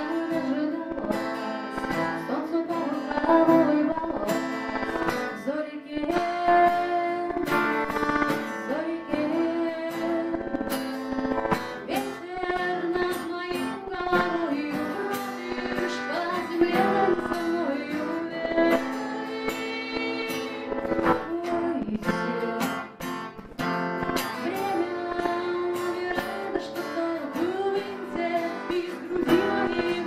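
A woman singing while strumming an acoustic guitar, performed live into a microphone, with steady strummed chords under the melody throughout.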